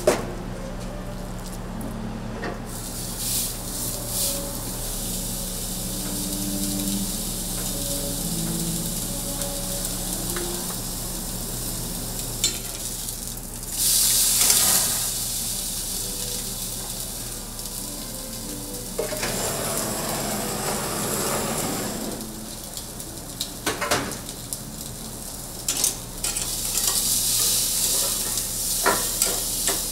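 Beef steak sizzling as it cooks, the hiss swelling louder in surges, loudest about fourteen seconds in, with a few sharp clicks scattered through.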